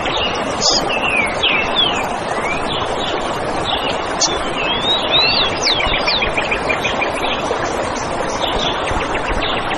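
Songbirds chirping and singing over a steady rushing background: short falling whistled notes, with a fast trill near the middle.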